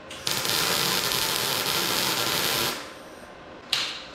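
MIG welder laying a tack weld: a steady hiss lasting about two and a half seconds, then a brief second burst near the end as another short tack is struck.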